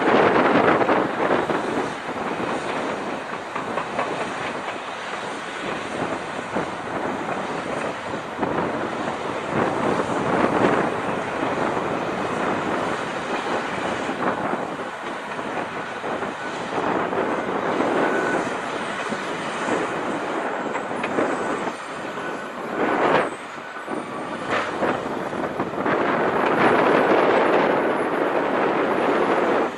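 Heavy mining machinery at work: the diesel engine of a Komatsu PC2000 hydraulic excavator running under load alongside a crawler bulldozer. The noise swells and eases every few seconds, with a sharp louder burst about two-thirds of the way through.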